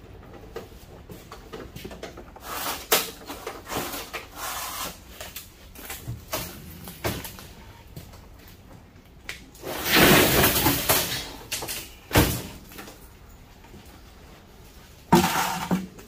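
Knocks and clatter of a gutted microwave's sheet-metal case being handled, tipped over and set down on a steel workbench, with one longer, loud clatter about ten seconds in and a sharp knock just after.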